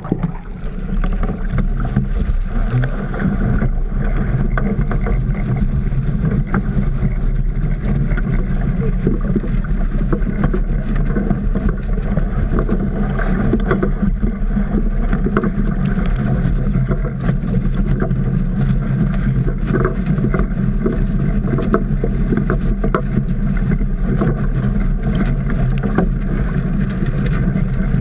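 Water sloshing and splashing in and against a swamped Optimist dinghy in choppy water, with wind buffeting the camera's microphone, heard through a waterproof camera housing. Many small irregular knocks of water and hull run through a steady low rush; it gets louder about half a second in as the camera comes out of the water.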